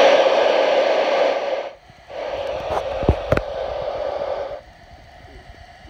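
Static hiss from a CRE8900 export CB radio's receiver, played through an external speaker, with the squelch open. The hiss cuts out briefly just under two seconds in, comes back with two quick clicks, and stops about four and a half seconds in.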